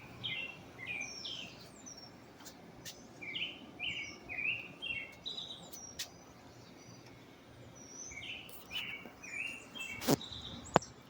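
A songbird singing in phrases of short, quick chirps repeated over and over, pausing briefly in the middle, with a couple of sharp clicks near the end.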